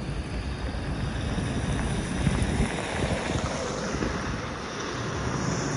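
Road traffic on a highway: a steady noise of tyres and engines, with wind buffeting the phone's microphone.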